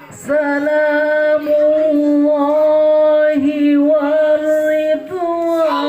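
A solo voice singing sholawat, holding one long, steady note for nearly five seconds before moving up in pitch near the end.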